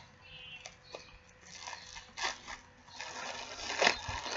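Plastic packaging bag crinkling as it is handled and pulled open, with louder crackles about two seconds in and near the end.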